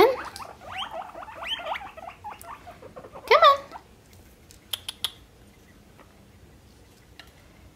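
Guinea pigs wheeking, the food-begging call, with lettuce in sight but out of reach. A run of short, quick rising squeaks comes in the first two seconds, then a louder squeal a little after three seconds in, and a few light clicks near five seconds.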